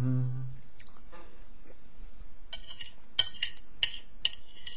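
A person chewing a mouthful of lasagne close to a headset microphone. A short hummed "mm" at the start, then a run of sharp wet clicks and smacks from about halfway on.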